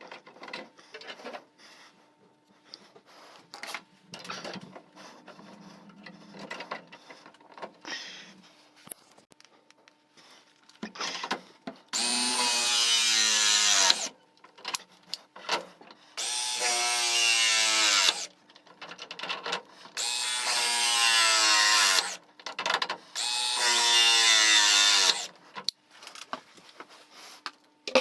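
Small handheld electric power tool run in four bursts of about two seconds each, its motor pitch dropping a little as each run starts, after several seconds of faint handling clicks and scrapes.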